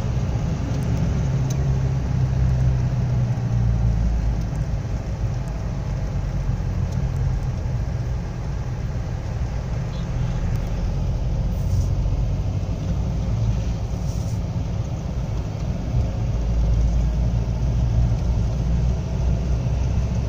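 Steady low rumble of engine and tyre noise heard from inside a moving vehicle's cab, with a low engine drone that swells for a few seconds twice while driving close beside heavy tipper trucks.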